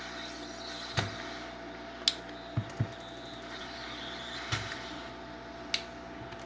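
Tools handled while desoldering a CPU lid: about six sharp clicks and taps spread across a few seconds, two of them in quick succession, over a steady electrical hum.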